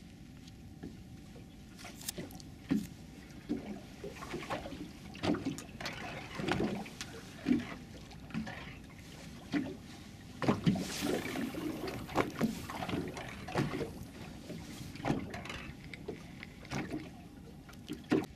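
Small waves lapping and slapping against the hull of a drifting open boat: irregular short splashes and knocks, roughly one a second, with a busier run of slaps about two-thirds of the way through.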